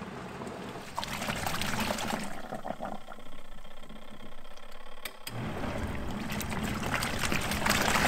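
Water sloshing and churning in the wash tub of a Costway twin-tub portable washing machine as its agitator swishes clothes through clean rinse water. The churning eases for a couple of seconds in the middle and picks up again about five seconds in.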